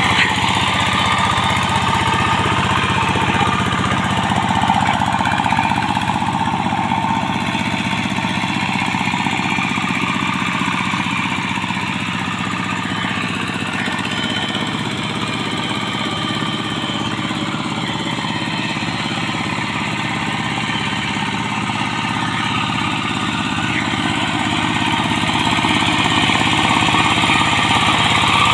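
Single-cylinder Yanmar TF diesel engine on a Quick TL800 two-wheel hand tractor, running steadily with a rapid knocking beat as the tractor works through a flooded rice paddy. It fades a little in the middle as the tractor moves off and grows louder again near the end as it comes back.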